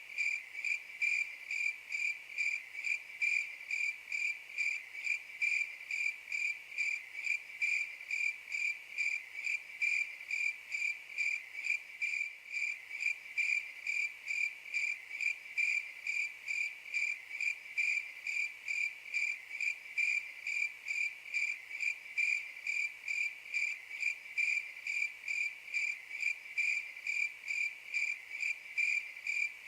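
Crickets chirping in a steady, even rhythm, about two to three chirps a second: the stock 'crickets' sound effect used to mark an awkward silence.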